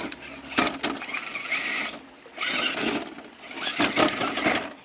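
Axial Deadbolt 1/10 electric RC crawler's motor and gears whining in short bursts, with knocks and scrapes as it climbs over rocks.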